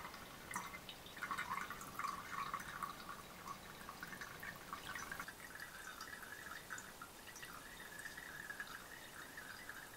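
Nickel plating solution trickling in a thin stream and dripping from a funnel, through a paper coffee filter, into a plastic container. The trickle is faint and steady, with small scattered drips.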